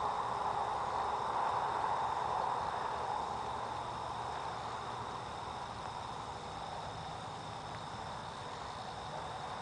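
Night-time outdoor ambience: insects chirring in steady high tones over a soft hiss that swells in the first few seconds and then eases.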